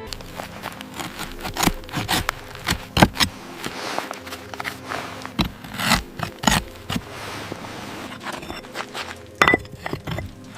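Irregular scraping, rubbing and clicking noises, a quick jumble of short sharp strokes with no steady rhythm.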